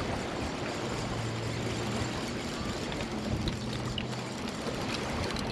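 Small waves washing and lapping against granite jetty rocks, a steady rushing sound, with a faint low drone that comes and goes.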